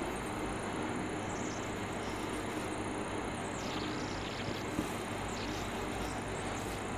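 Marker pen writing on a whiteboard, faint squeaks of the tip coming a few times over a steady background hiss.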